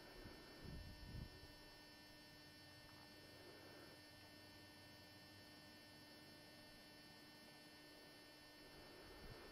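Near silence with a faint steady electrical hum, and a couple of soft low thumps about a second in.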